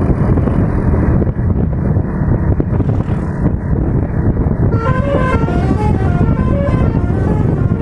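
A steady low rumble, then from about five seconds in a Basuri multi-tone 'telolet' bus horn playing a quick melody of short notes that step up and down in pitch.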